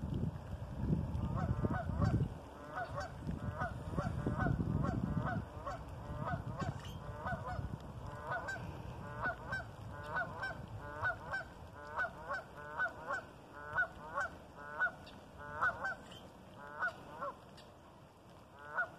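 Geese honking over and over, about one or two short honks a second, over a low rumble that is loudest in the first few seconds.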